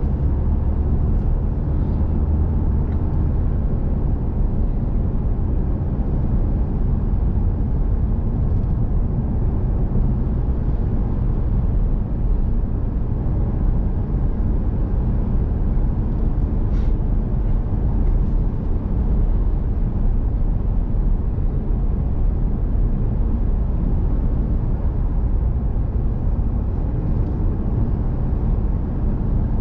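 Steady engine and road rumble of a moving vehicle, heard from inside the cabin.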